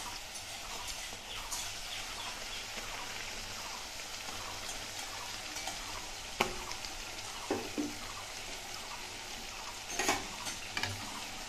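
Luchi deep-frying in hot oil in a kadai: a steady sizzle, with a few short knocks of a wooden spatula against the pan, once about six seconds in, a couple more after, and again near the end.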